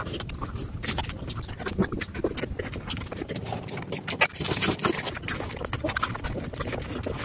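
Close-up eating sounds of steamed momos being chewed: wet chewing and lip smacking with many quick mouth clicks. About four seconds in, thick chili sauce is tipped out of a bowl and splats onto a foil-covered table.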